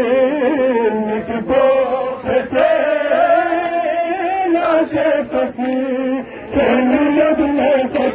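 Men's voices chanting a Balti noha (Shia lament) together in a melodic line, with sharp hand slaps of chest-beating matam heard through it.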